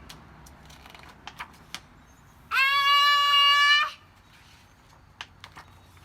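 A young girl's voice giving one long, steady wail, acting out a character crying, starting about two and a half seconds in and lasting just over a second. A few faint clicks come before and after it.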